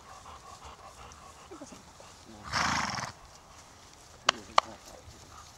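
A horse gives one loud, breathy burst of sound, under a second long, about two and a half seconds in. Two sharp clicks follow near the end.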